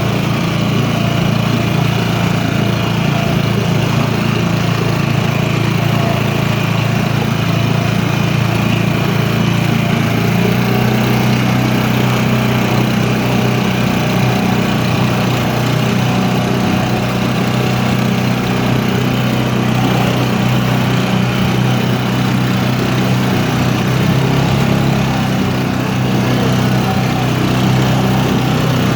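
An engine running steadily, its pitch shifting slightly about ten seconds in.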